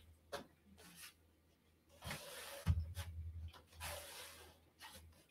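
A man kicking up into a handstand against a wooden door: a sharp knock just after the start, then a low thump of his body against the door about two and a half seconds in, with two longer rushing hisses around it.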